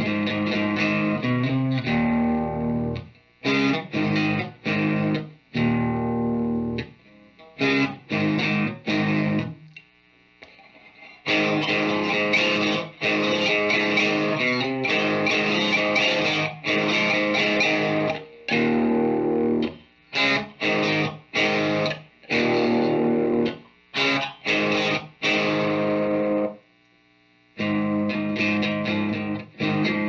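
Distorted electric guitar played through a Marshall Origin 20 head in its middle power setting and a Mesa Engineering Recto 112 cabinet loaded with a 12-inch Celestion Gold speaker. Chords ring and are choked off short, in phrases broken by brief pauses, with a run of quick stabbed chords past the middle.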